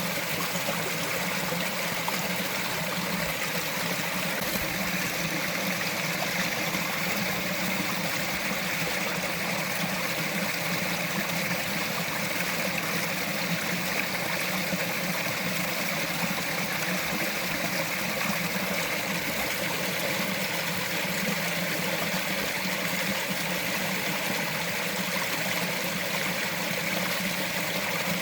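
Small mountain stream running steadily over rocks: a continuous, even rush and trickle of water.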